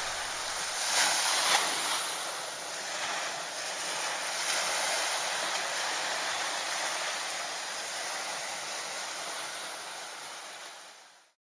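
Ocean surf washing on a beach, a steady rush with a couple of louder surges in the first few seconds, fading out near the end.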